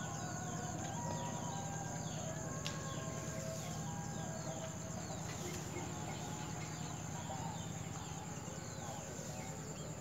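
Birds chirping in many short, falling chirps over a steady high-pitched insect drone, with a low pulsing hum underneath.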